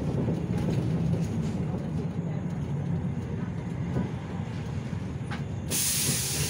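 City bus engine running as the bus drives, a steady low drone heard from inside the cabin. Near the end comes a loud hiss of compressed air from the bus's air system, lasting under a second.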